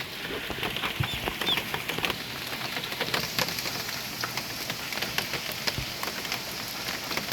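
Steady hurricane rain falling, with many sharp individual drop hits over an even hiss.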